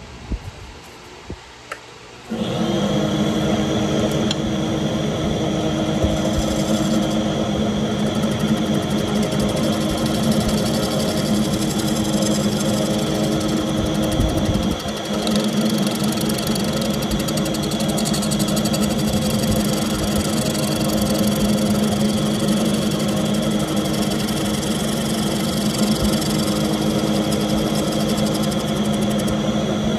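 Wood lathe switched on about two seconds in, then running steadily with a motor hum while a bowl gouge cuts the spinning Goncalo Alves bowl, adding the scrape of the tool on the wood.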